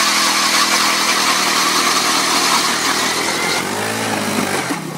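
Gas-powered ice auger engine running hard and steady, with loud mechanical noise; about three and a half seconds in, its pitch rises and falls.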